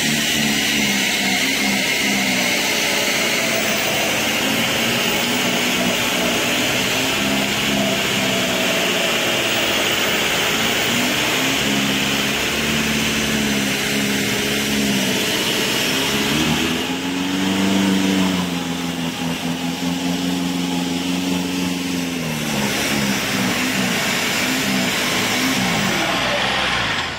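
Off-road jeep engines revving and labouring in deep mud while one jeep tows another out on a strap. The revs rise and fall, climb sharply about two-thirds of the way through, hold for a few seconds, then drop back.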